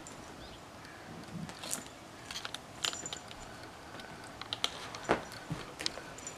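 Faint scattered rustles and small clicks as a cat bats at, grabs and bites a wand toy's fabric streamer, with one sharper click about five seconds in.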